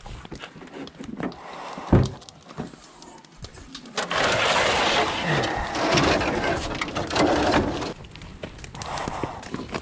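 Footsteps and handling noise with a sharp thump about two seconds in, then a stretch of rough scraping and rustling as split firewood is pulled from a car's cargo area and carried off.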